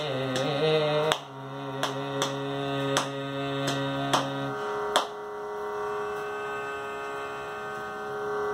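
A male voice sings the closing phrase of a Carnatic song in raga Dharmavathi and holds the final note over a steady drone, with sharp taps keeping time. The voice and taps stop about four and a half to five seconds in, leaving the drone sounding alone.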